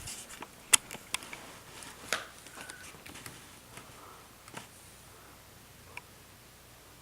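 Phillips screwdriver and small screws clicking and scraping against a laptop's new screen panel as it is screwed back into the lid. There are a few sharp clicks in the first couple of seconds, the loudest a little under a second in, then fainter ticks and light scraping.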